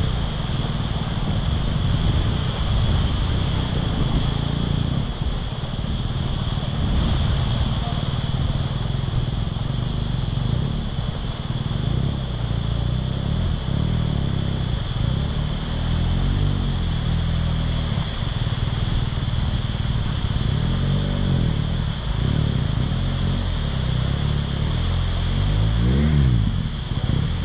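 BMW GS adventure motorcycle's boxer-twin engine working through a flooded creek crossing, its revs rising and falling in several swells, the strongest near the end.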